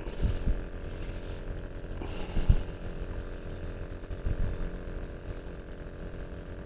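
Faint handling noise of hands working a fishing hook out of a freshly caught baung catfish's mouth, close to the microphone, with a sharp click about two and a half seconds in and a few softer knocks.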